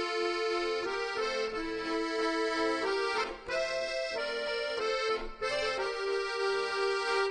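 Background music: an accordion-led tune of held chords that change every second or so, with two brief breaks.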